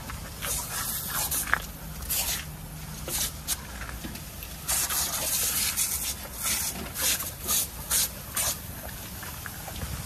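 A garden hose jet spraying, with irregular bursts of splashing and spattering as dogs bite and snap at the stream.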